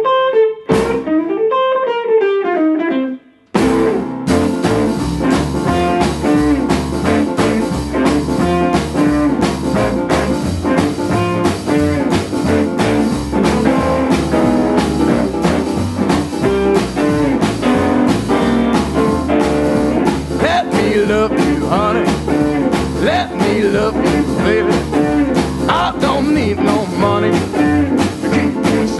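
Jump blues and rockabilly band playing an instrumental intro: a solo piano run opens, a short break follows, and the full band of piano, guitars, double bass and drums comes in with a fast steady beat about three and a half seconds in.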